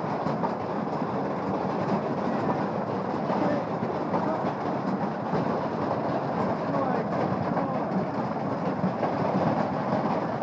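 Large hailstones pelting down in a dense, unbroken clatter of impacts on the shed and yard.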